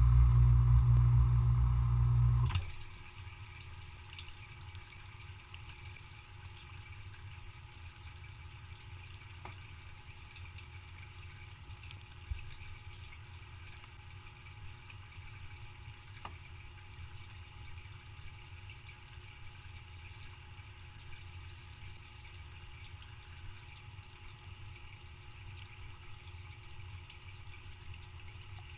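Dishwasher pump running with a loud low hum that cuts off suddenly about two and a half seconds in, then a steady, quieter wash of water sounds inside the machine with a few faint clicks.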